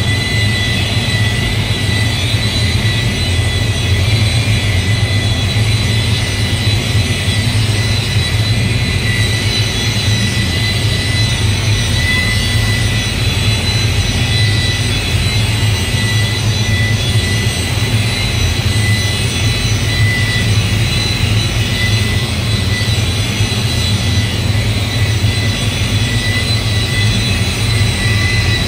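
Steady machine drone with a low hum and a constant high whine, unchanging throughout.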